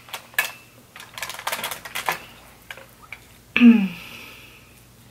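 Crab leg shells being cracked and handled: a quick run of sharp clicks and crackles in the first two seconds. About three and a half seconds in, a short voice sound falling in pitch, the loudest event.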